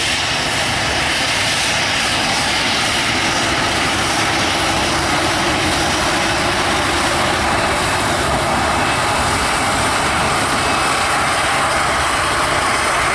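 Boeing 737-700's CFM56-7B turbofan engines at taxi power as the jet rolls past close by: a loud, steady jet rush with a faint high whine.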